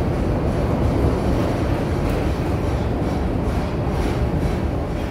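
Chicago CTA Blue Line subway train running, heard from inside the passenger car as a steady noise of wheels on track.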